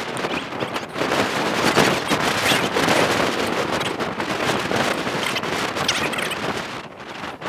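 Strong wind buffeting the microphone: a loud, steady rushing noise with a crackly texture that dips briefly near the end.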